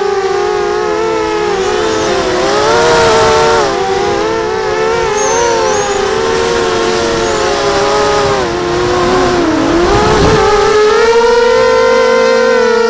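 Mini quadcopter's brushless motors and propellers whining, the pitch wavering and splitting as the throttle changes, dipping about ten seconds in and then climbing again.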